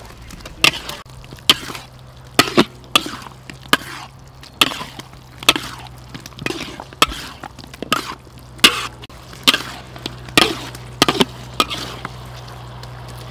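Metal spatula scraping and knocking against a steel wok while beef, onions and peppers are stir-fried, in sharp strokes about once a second.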